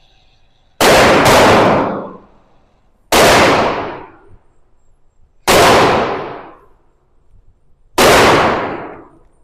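Gunshots from a SIG P365 X Macro 9mm pistol fired at a slow, deliberate pace: a quick pair about a second in, then three single shots a couple of seconds apart, each echoing away for about a second.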